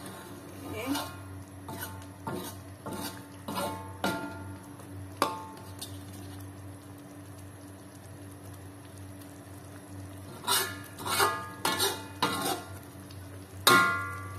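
Spatula stirring thick chili sambal in a wok, scraping and clinking against the pan in a run of strokes, with a sharp ringing knock about five seconds in. After a quieter stretch come a few more clinks and then the loudest ringing knock near the end.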